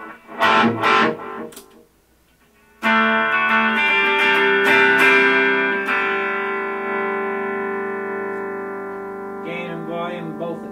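Electric guitar played through a Boss Katana Mini, a small 7-watt amp with a 4-inch speaker. A couple of quick strums are followed by a chord struck about three seconds in that rings out and slowly fades, then a few picked notes near the end.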